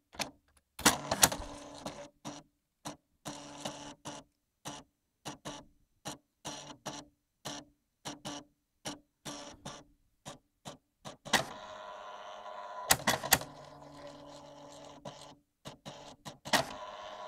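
Brother EP-44 electronic typewriter printing serial-terminal output: its thermal print mechanism prints in a run of short strokes, about two or three a second, then runs more steadily from about eleven to sixteen seconds in, with a few sharp clacks.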